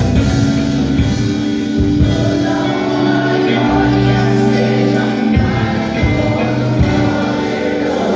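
A band playing with a group of voices singing together, over held bass notes and drum hits.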